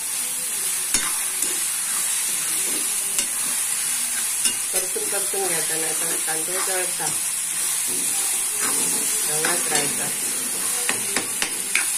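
Chopped onions and tomatoes sizzling in oil in a frying pan, stirred with a steel spoon that scrapes and clicks against the pan. The clicks come more often near the end.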